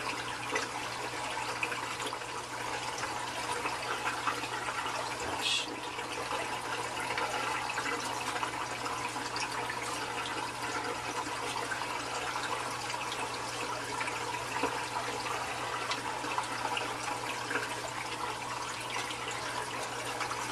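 Steady rushing of water flowing down an algae turf scrubber screen and splashing into the reef tank's sump, with a low steady hum underneath. A brief light tap comes about five seconds in.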